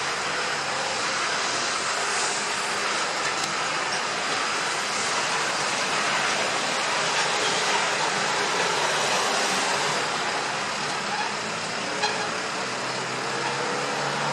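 Steady road vehicle noise, an even rushing sound that holds throughout with no sudden events.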